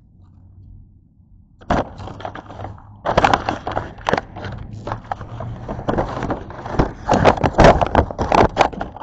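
Stiff plastic takeout packaging crinkling and crackling right by the microphone as it is handled. It starts about two seconds in as a run of sharp, irregular cracks and crinkles and goes on to near the end.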